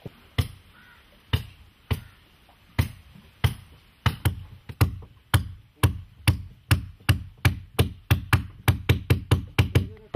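Hand hammering on the wooden planking of a sewn boat's hull, where the coir stitching runs. Single sharp blows about a second apart at first, quickening to about three a second near the end.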